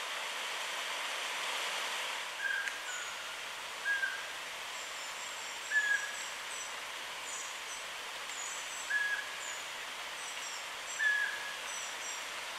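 Forest ambience: a steady soft hiss, with a bird giving a short call about every two seconds and, from about five seconds in, strings of thin, very high-pitched bird calls.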